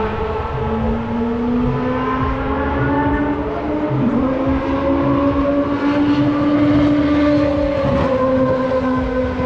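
Car engine running hard under acceleration, its pitch climbing slowly and dropping back twice, about four and eight seconds in, as at gear changes.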